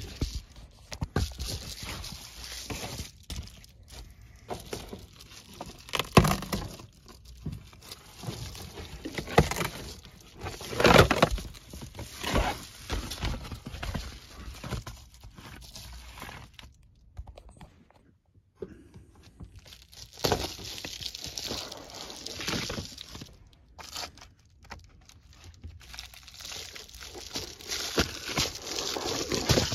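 Window covers being pulled down and handled inside a car: plastic sheet and foil bubble-insulation panels crinkling and rustling, with irregular knocks and thuds. There is a short lull about two-thirds of the way through.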